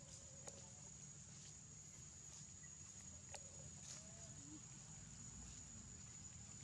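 Quiet forest ambience: a steady, high-pitched insect drone, with a few faint clicks and a couple of faint short chirps.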